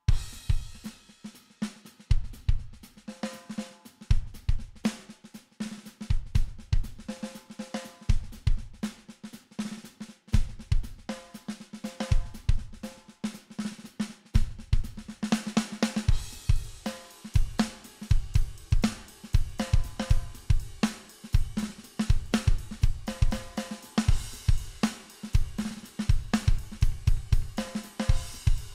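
Sampled drum kit playing a steady rock groove of kick, snare, hi-hats and cymbals, run through a chain of Fuse Audio Labs plugins: Octafish octave pedal, Bucket-500 analog delay, VPRE-562A preamp, F-59 amp simulator and VCL-25A leveling amp, which gives the drums a saturated, colored sound. The cymbals are brighter in stretches of the second half.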